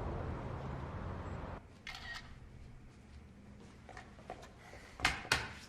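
Camera shutter clicking several times as pictures are taken, the loudest two clicks close together near the end. A rushing background cuts off suddenly about one and a half seconds in.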